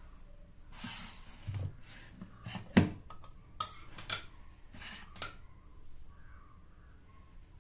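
Stainless-steel mixer-grinder jar and its lid being handled: a string of clinks and knocks with short rubbing noises, the sharpest knock about three seconds in. The grinder motor is not running.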